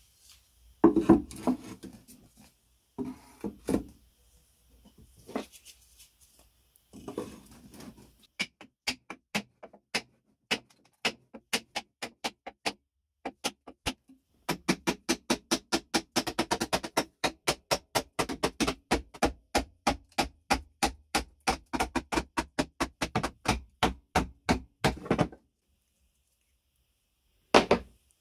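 Repeated sharp tapping or knocking: scattered strikes at first, then a fast, even run of about four to five strikes a second for some ten seconds that stops suddenly, with a couple more knocks near the end.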